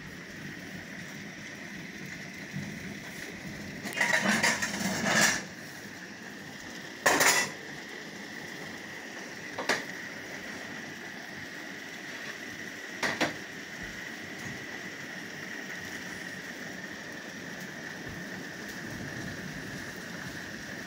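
Steady heavy rain falling, broken by loud sharp clattering knocks: a rattly cluster about four seconds in, then single knocks about seven, ten and thirteen seconds in.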